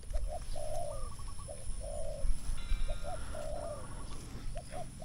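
Spotted dove cooing: a phrase of two short notes ending in a longer coo, repeated four times, about every second and a half.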